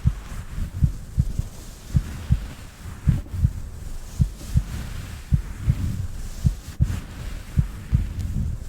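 Heartbeat, a steady double thump (lub-dub) repeating a little under once a second.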